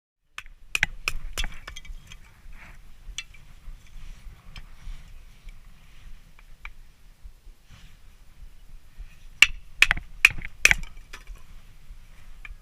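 A run of sharp knocks and clicks, with a loud cluster of four or five close together about nine seconds in.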